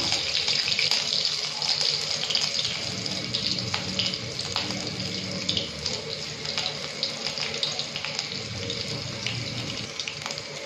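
Cumin seeds and chopped green chillies sizzling in hot oil in a kadai: a steady hiss with scattered crackles and pops, slowly dying down.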